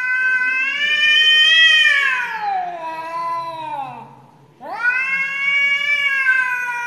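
Cats yowling in a face-off, the long drawn-out threat caterwaul of cats about to fight. One long yowl rises and then falls in pitch, dying away about four seconds in, and a second long yowl starts half a second later and slowly falls.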